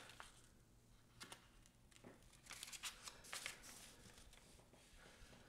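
Faint, soft rustling and crinkling of wet laser-printer transfer paper being peeled off an image transferred with acrylic gel medium onto a wooden coaster, in a few short scattered bursts.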